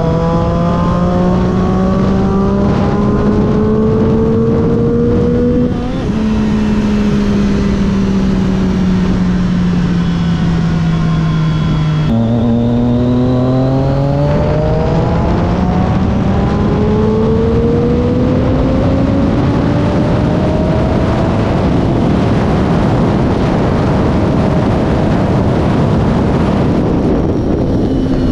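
Triumph Daytona 675's inline three-cylinder engine, fitted with a BMC racing air filter, heard from the rider's seat while riding. The engine note rises, drops abruptly at a gear change about six seconds in and then slowly falls, drops again at a second gear change about twelve seconds in, then climbs steadily for the rest, with wind rush throughout.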